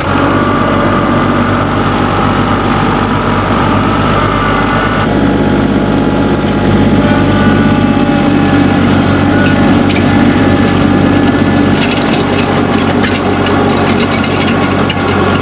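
New Holland TC35DA compact tractor's diesel engine running steadily, its note changing about five seconds in.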